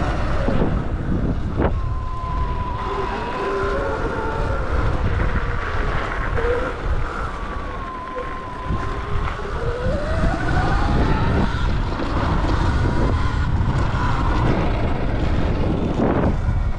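Sur-Ron Light Bee X electric dirt bike under way, its motor whine rising and falling in pitch as the speed changes, under heavy wind rush on the microphone.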